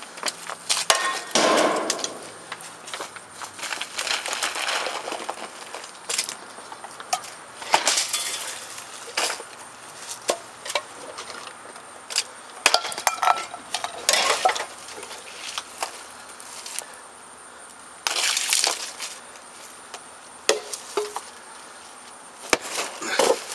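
Food thrown item by item into a plastic mop bucket: an irregular run of splats, thuds and clinks as eggs, vegetables and packaged food land and break in it.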